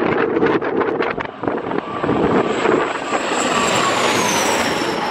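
De Havilland Canada Dash 8 turboprop passing low overhead on landing approach: a steady engine and propeller drone with a high whine that drops in pitch about four seconds in as it goes over. Wind gusts buffet the microphone in the first second or so.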